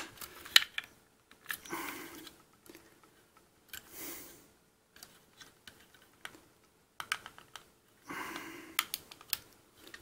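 Hard plastic action-figure parts clicking, knocking and scraping against each other as they are pressed and twisted to clip together: scattered sharp clicks with short rubbing noises between. The pieces are tight and won't clip together, because a peg is off-centre.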